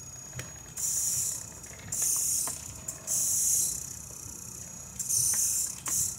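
Siku Control radio-controlled dump truck manoeuvring, with five short hisses of about half a second each and a few light clicks over a low steady hum.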